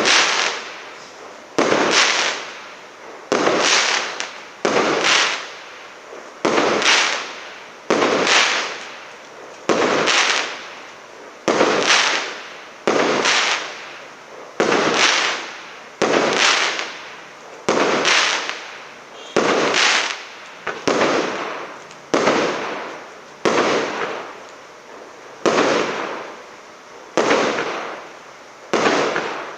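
SL326200 'Marathon' firework going off shot after shot at an even pace, a sharp bang about every one and a half seconds, each fading quickly.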